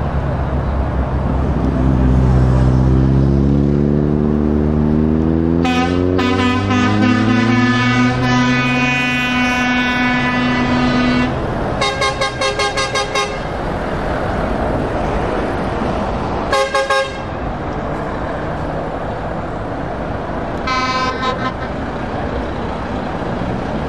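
Renault T truck's diesel engine pulling away, its pitch climbing steadily as it accelerates. Over it a truck horn sounds one long blast of about five seconds, then a quick string of rapid toots, and later two short toots.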